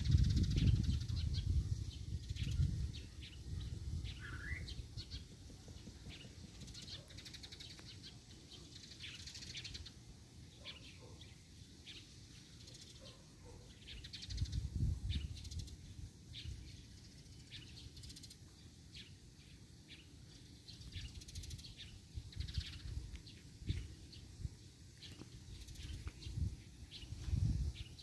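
Scattered short, high bird chirps, with one brief rising call about four seconds in. Low rumbles come and go at the start, about halfway through, and near the end.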